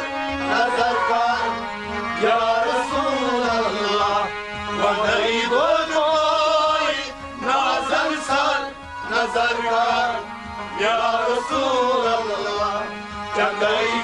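Kashmiri Sufi folk music: a man singing a melodic line over harmonium, with occasional percussion strokes.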